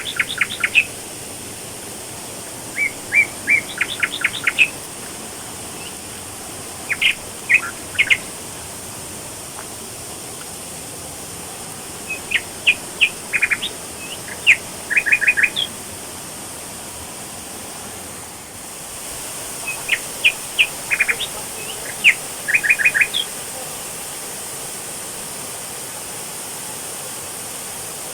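A bird calling in quick runs of short, sharp, high chirps, in several separate bursts, over the steady rush of a waterfall.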